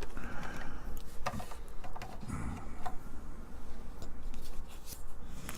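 A few light, scattered clicks and taps as printed circuit boards and plastic case parts are handled and set against each other.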